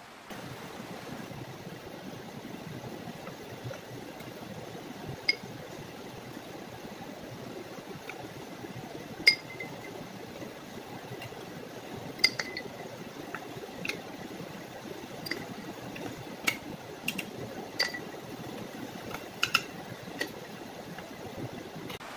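Light clinks of small hard objects, each with a brief ring, about a dozen at irregular intervals over a steady low hiss; the loudest come about nine and twelve seconds in.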